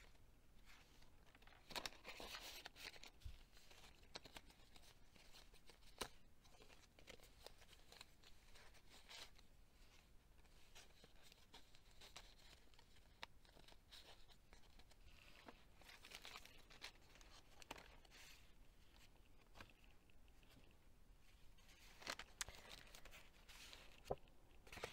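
Faint rustling and crinkling of paper as the pages, tags and tucked-in pieces of a handmade junk journal are handled and turned, with a few soft clicks and taps.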